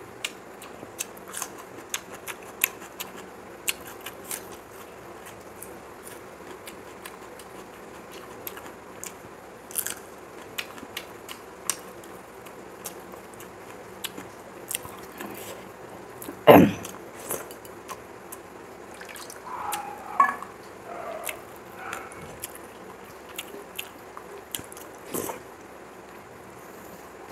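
Close-miked chewing and mouth sounds of a person eating rice and curry by hand, with small wet clicks and crunches throughout. One loud knock a little past halfway.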